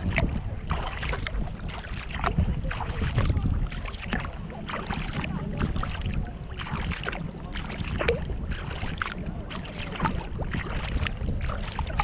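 Water splashing and lapping against a kayak's hull as it is paddled, in short, irregular splashes, over a low rumble of wind on the microphone.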